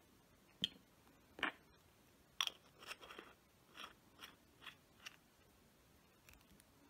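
Faint handling noises: about ten short clicks and crinkles spaced roughly half a second apart, the sharpest near the start.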